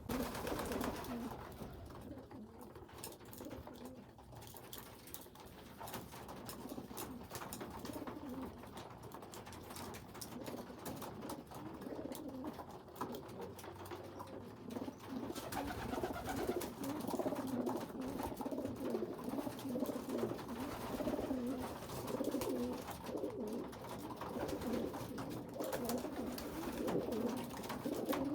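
Pigeons cooing, a low repeated burbling that grows louder about halfway through.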